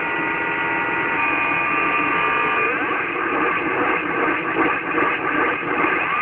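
Kenwood TS-850S HF receiver's audio on the 80-metre band in lower sideband: a rough hash of static and interference with several steady whistling tones, which begin to glide in pitch about two and a half seconds in as the dial is turned. It is the heavy band noise heard at this station.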